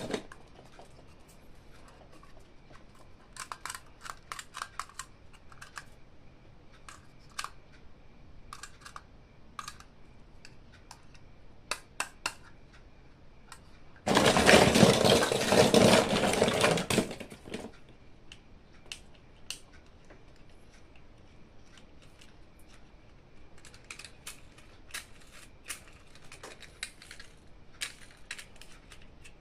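Small clicks, taps and rustles of toys and their packaging being handled, with one loud rasping noise lasting about three seconds midway.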